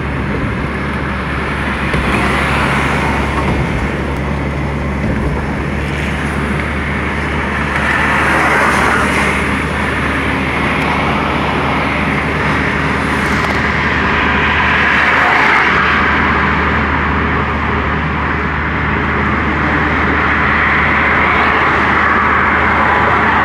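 Road noise inside a small car's cabin while driving on a highway at about 80 km/h: a steady low drone with a hiss above it that swells and eases a few times.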